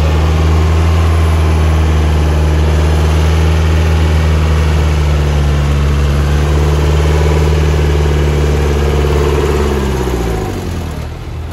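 Off-road 4x4 engine held at steady high revs, working under load as the vehicle is pulled out of a muddy water hole on a tow strap. Near the end the revs fall away.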